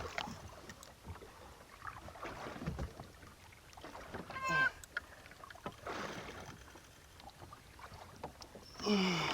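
Small fishing boat at sea: water sloshing against the hull and wind, with two short calls, one about halfway through and one falling call near the end.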